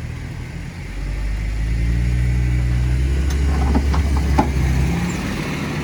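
An off-road 4x4's engine is brought up under load about a second in, held there for several seconds, then eased back. A few sharp knocks sound partway through.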